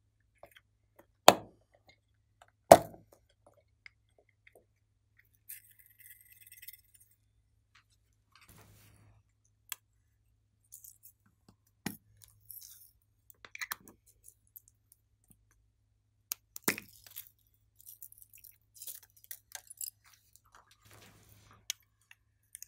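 Hard plastic toys and containers handled over a glass tray: scattered clicks, taps and clinks, with two sharp knocks about a second and a half apart near the start.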